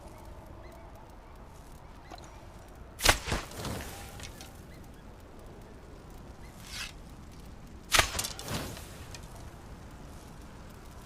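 Two bow-and-arrow shots about five seconds apart, each a sharp snap followed by two quieter knocks that die away quickly.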